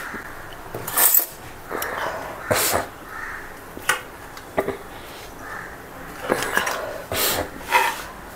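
Foil wrapper of a butter block crinkling as it is unwrapped and handled, with scattered sharp clicks and knocks of kitchen items.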